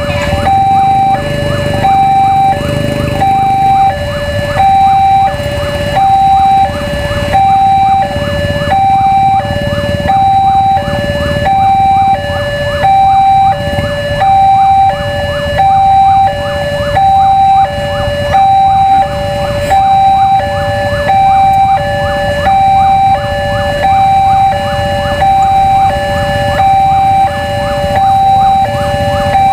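Railway level-crossing warning alarm sounding a two-tone electronic chime, a higher note then a lower note, repeating about once a second without pause: the signal that a train is approaching. A low rumble runs underneath.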